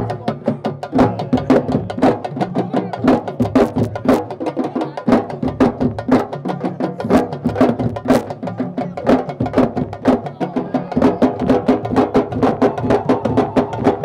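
Fast, dense drumming with many sharp hand-struck beats a second, the sabar drumming that drives a Senegalese wrestling (laamb) dance.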